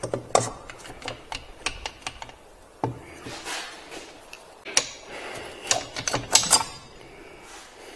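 Irregular clicks and knocks of metal parts as the two-cylinder block of a Polaris Ranger 700 engine is handled and lifted off the crankcase by hand, with the sharpest knocks about five and six and a half seconds in.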